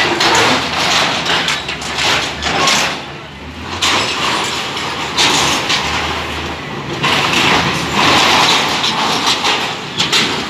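Doosan wheeled excavator's diesel engine running under load while its bucket tears down a marquee, with repeated surges of scraping and crunching from the collapsing metal frame and sheeting. The sound dips briefly about three seconds in.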